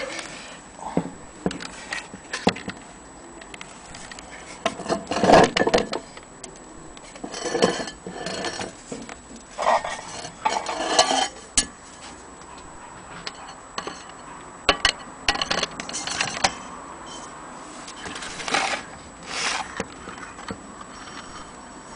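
Metal parts of an old gramophone motor being handled, giving irregular clinks, knocks and short scraping rubs.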